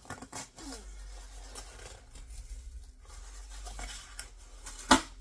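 Cardboard shipping box being opened by hand: tape and flaps pulled and torn, with rustling and scraping of the cardboard and a sharp snap near the end.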